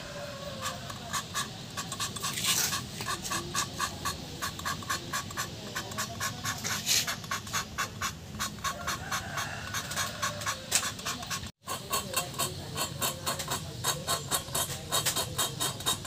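Engine valve being hand-lapped into its seat in a Suzuki F6A cylinder head with coarse grinding compound: rhythmic scraping clicks about three times a second as the valve is worked against the seat. The lapping is done to reseat a leaking valve.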